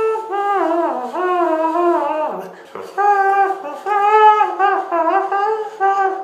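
Beatbox trumpet imitation: a mouth-made, trumpet-like buzzing tone playing a short melody of notes that slide into one another, with a brief break and a falling slide a little before halfway.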